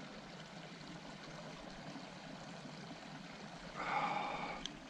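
Steady rush of flowing water from the flooded creek, with a brief louder sound about four seconds in.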